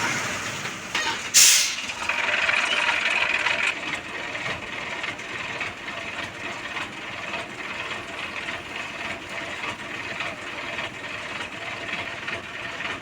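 Truck running with a steady noisy drone, cut by one short, sharp hiss about a second and a half in.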